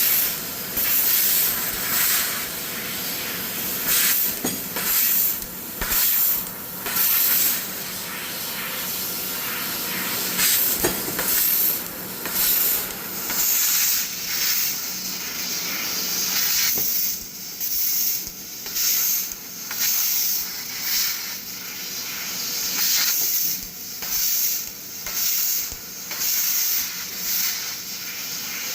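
CNC laser cutter cutting steel sheet: the assist gas hisses steadily, with short louder bursts of hissing about once a second as the head cuts and pierces.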